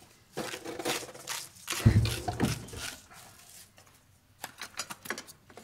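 Kitchen counter handling: rustling, then a solid thump of something set down on the counter about two seconds in, and a quick run of light clicks near the end.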